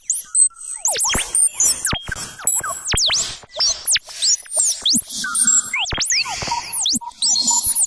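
Synthesized weird sound effects from the Serum wavetable synthesizer: rapid chirping pitch sweeps that swoop up and down several times a second, mixed with sharp clicks and short bursts of hiss.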